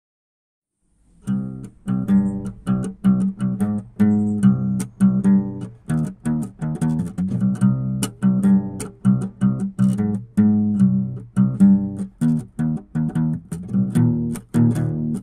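Instrumental music with a plucked-string line of quick, rhythmic notes, starting about a second in after a brief silence.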